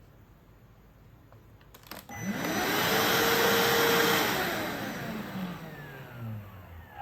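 Vax Blade VX60 cordless stick vacuum cleaner switched on with a click: its motor spins up with a rising whine, runs briefly, then is switched off and winds down with a falling whine.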